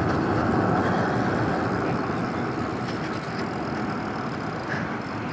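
Wind rushing over the microphone and the hum of a Super73 S2 e-bike's fat tyres rolling on asphalt, fading gradually as the bike slows.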